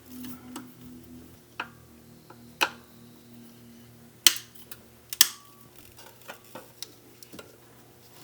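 Scattered sharp clicks and knocks of hand tools at work on the engine, the loudest about four seconds in, over a faint steady hum.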